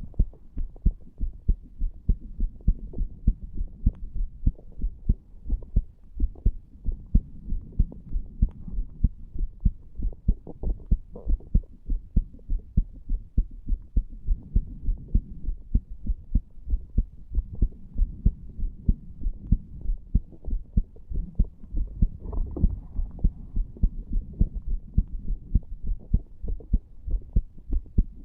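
A human heartbeat heard through a chest recording over the tricuspid valve area: regular, steady low thumps repeating without a break.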